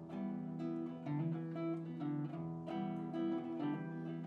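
Acoustic guitar strummed live, an instrumental passage with chords changing every half second or so.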